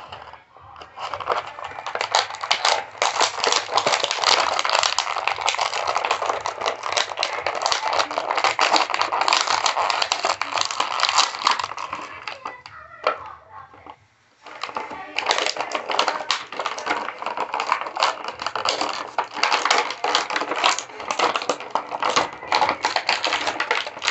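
Toy packaging being handled as an action figure and its accessories are taken out: plastic and cardboard crinkling and clicking in two long stretches, with a pause of about two seconds halfway through.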